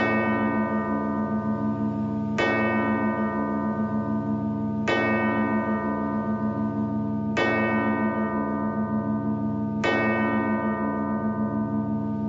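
A large bell tolls, struck five times about two and a half seconds apart. Each strike rings on with a pulsing hum that carries into the next.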